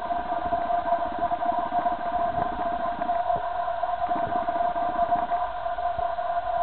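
A steady mechanical hum made of several fixed tones that do not change, with a low, rapidly pulsing rumble beneath it.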